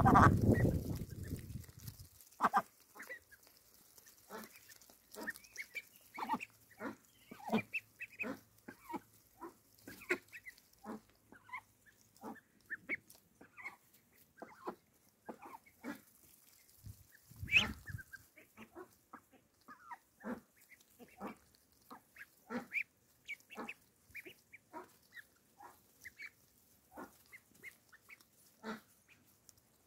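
Indian Runner ducklings pecking at lettuce from a hand: a quick, irregular run of short sounds from their bills and throats. A low rumble fills the first two seconds.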